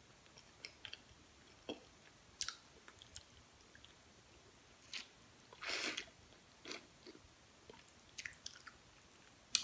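A person eating turkey neck by hand: faint, scattered smacks and clicks of chewing and sucking meat off the bone. One longer, louder mouth sound comes just before six seconds in.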